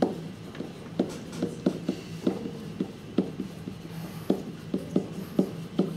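Writing on an interactive whiteboard: a pen or stylus making light, irregular taps and strokes against the board as words are written out.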